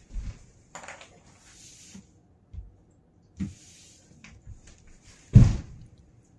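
Body thumps and sliding swishes of hands, feet and clothing on a hardwood floor as a person goes down into a full-length prostration and pushes back up. There are a few dull thumps, the loudest about five seconds in, with scraping swishes between them.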